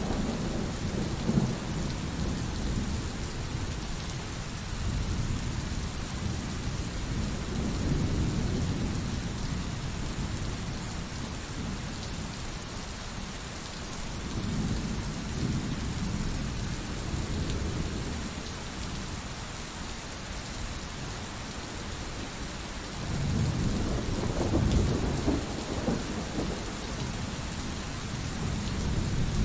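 Thunderstorm: steady rain hissing, with low rolls of thunder that swell and fade several times and are loudest about three quarters of the way through.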